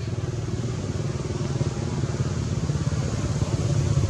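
A motor vehicle's engine running steadily, growing slowly louder as it comes closer.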